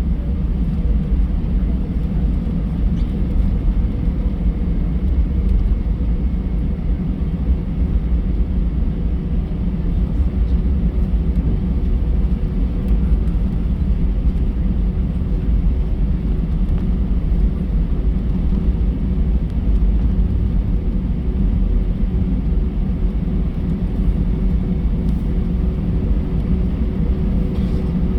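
Airbus A320 engines and airframe heard inside the passenger cabin: a steady, even low rumble with a faint constant hum, no spool-up or change in pitch.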